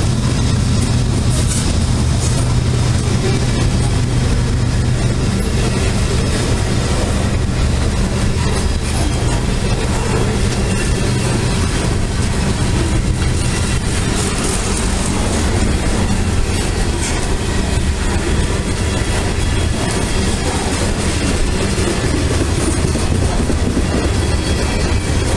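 Freight train cars loaded with containers rolling steadily past: a continuous deep rumble of steel wheels on rail, with repeated clacks of the wheels.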